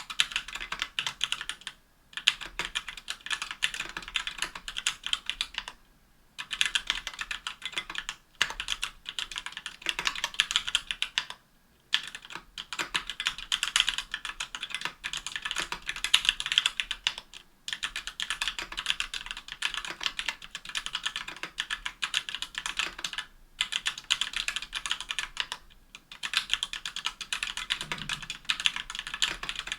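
Fast, steady typing on a KBDfans Tofu60 aluminium-case 60% mechanical keyboard with stock Everglide Amber Orange linear switches, lubed and clipped screw-in stabilisers and GMK keycaps: runs of crisp key clacks as the keys bottom out, broken by short pauses every few seconds.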